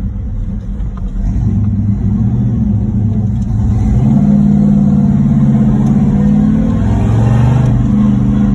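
1968 Pontiac GTO's 400 V8 engine running while driving, pulling harder about four seconds in, with a change in pitch near the end.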